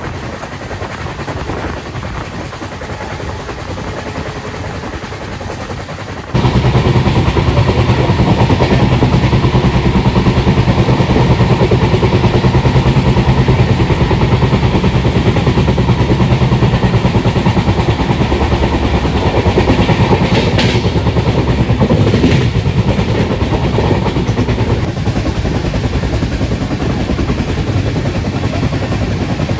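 Express train under way behind twin EMD diesel locomotives. Rail running noise jumps abruptly to a much louder, steady low drone of the diesel engines about six seconds in. Two short clatters come about two-thirds of the way through.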